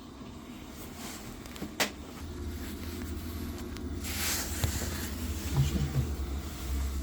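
Biasi combi boiler starting up: a sharp click, then a low hum begins about two seconds in and slowly builds, with a short burst of hiss near the middle.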